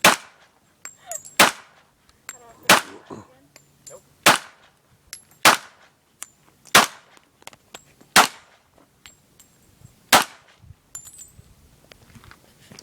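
Gunshots at a shooting range: eight single shots fired in a steady string, about one every second and a half, the last after a slightly longer pause, with fainter ticks in between.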